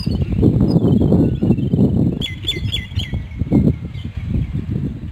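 Small birds chirping, with a quick run of repeated high notes about two seconds in, over a loud, uneven low rumble of noise.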